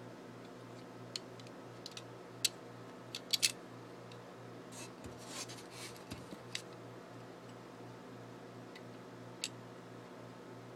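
Leatherman Surge multi-tool being handled, its steel tools clicking as they are folded and opened. The clicks are scattered, with a quick cluster about three and a half seconds in, a stretch of soft scraping a little later and one last click near the end, over a low steady hum.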